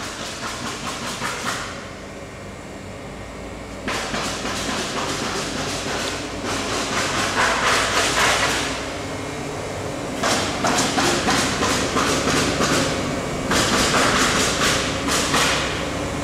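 Compressed-air plant running, with a Kaeser CSD 102 rotary screw compressor: a steady low hum that grows stronger about three seconds in. Several bursts of rattling clatter, each lasting a few seconds, come and go over it.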